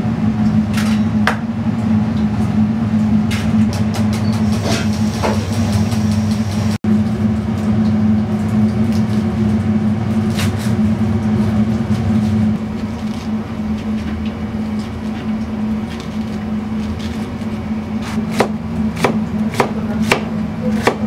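Steady low hum of kitchen equipment throughout. In the first few seconds there are sharp cracks of eggshells being broken on the rim of a steel bowl. Near the end a knife slices onion on a plastic cutting board, knocking about three times a second.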